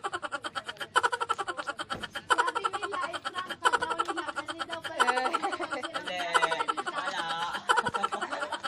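Background music with a fast, steady beat; a voice comes in about five seconds in and carries on for a few seconds.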